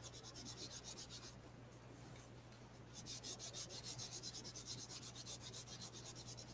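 Faint rubbing of a cloth rag over heat-embossed, ink-blended cardstock in quick back-and-forth strokes, wiping the ink off the embossed image so the white shows through. The rubbing pauses about a second and a half in and starts again around three seconds.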